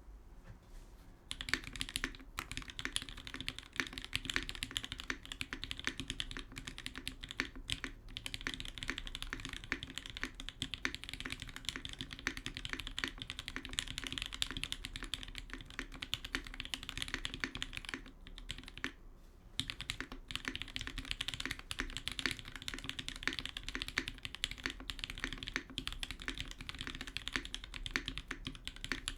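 Typing on a TGR 910 CE custom mechanical keyboard with lubed linear switches (Alpaca stems in Gateron Milky housings), on an undampened brass plate under GMK keycaps. The keystrokes come quick and continuous from about a second and a half in, with a short pause a little past halfway.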